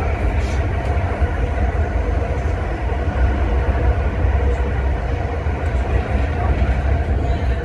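ScotRail Class 385 electric multiple unit running, heard from inside the vestibule: a steady, loud low rumble of wheels and running gear with a faint hum from the traction motors.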